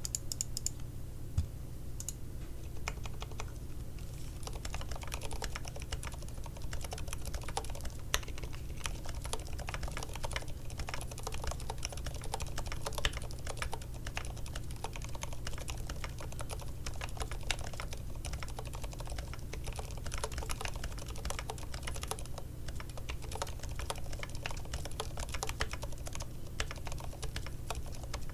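Typing on an IDOBAO ID80 75% hot-swappable mechanical keyboard with silent linear switches: a few scattered keystrokes at first, then fast, continuous typing from a few seconds in. A low steady hum sits underneath.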